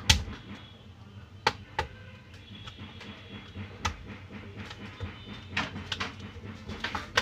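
Plastic snap clips of an HP 14-am095tu laptop's case clicking loose as the palmrest is pried off the base around its edge. The sharp clicks come singly and scattered, the loudest right at the start and a quick run of three near the end, over a low steady hum.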